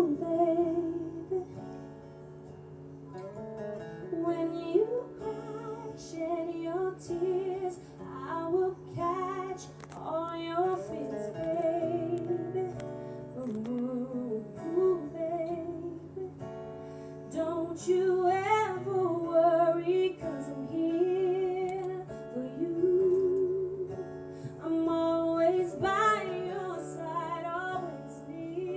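A woman singing an R&B song live, accompanied by a strummed acoustic guitar; her held notes waver in pitch.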